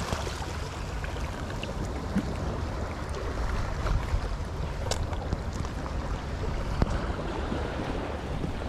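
Steady wind noise rumbling on the microphone over a wash of sea water, with a few small knocks.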